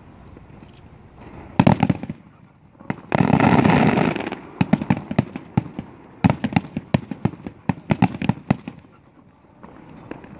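Fireworks display going off: a short cluster of bangs, then about a second of loud, dense crackling, then a quick run of sharp bangs, several a second, that stops near the end.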